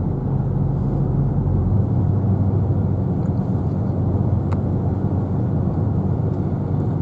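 Steady low road and engine rumble inside a moving car's cabin, with a single brief click about four and a half seconds in.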